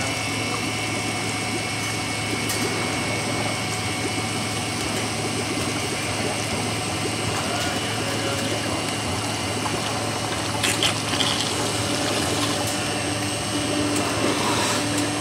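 Air bubble film (bubble wrap) making machine running steadily in production: a continuous mechanical whir and hum with a few steady tones, as the bubbled film runs over its rollers and winds onto the take-up roll.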